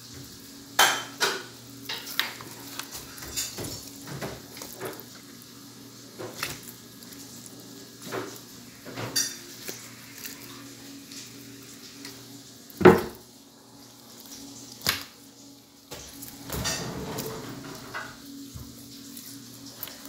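Irregular knocks and clatter as a pile of fish is handled beside a white board, with the loudest knock about 13 seconds in, over a steady low hum.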